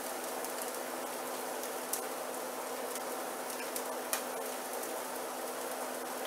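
Faint steady sizzling hiss from a hot stovetop, with a low steady hum underneath and a couple of faint ticks.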